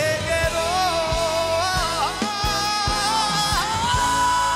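A man singing a Korean ballad at full voice over a live band with drums, his line climbing to a long held, belted high note about four seconds in.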